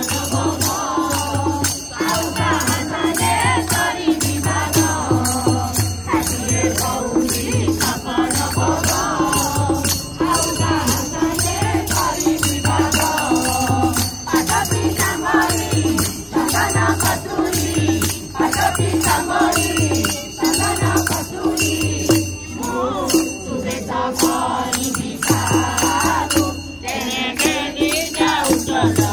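Devotional kirtan: a group of men and women singing in chorus to a steady beat on a hand-played barrel drum, with bright metallic jingling over it.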